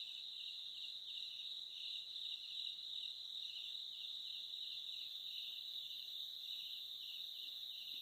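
Crickets trilling in a steady high chorus, with a softer pulsing call just beneath it.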